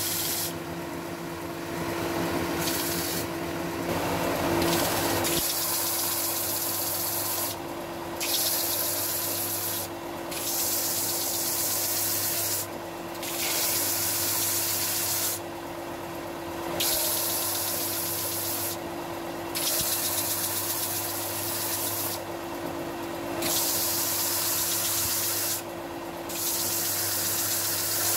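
Benchtop belt-and-disc sander running with a steady motor hum while a thin wooden strip is pressed onto the moving belt. The sanding comes as about eight rasping hisses, each two to three seconds long, with short breaks between passes.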